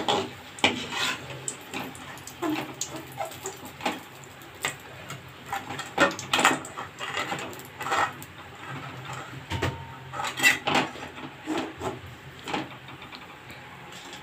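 Long metal slotted spatula clinking and scraping against an aluminium wok and a perforated aluminium plate in irregular knocks while fried pitha are lifted out of the oil.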